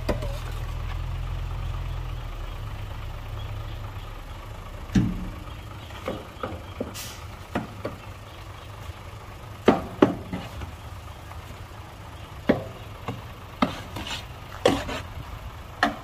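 Heavy diesel machinery running at a low, steady rumble, stronger for the first couple of seconds and then quieter. About a dozen sharp knocks and clanks come at irregular intervals over it.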